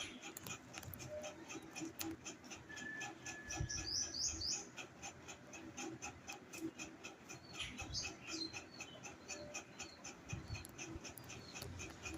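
A parrot gives a few short, high, falling chirps, in two small clusters, over a steady fast ticking of about three ticks a second.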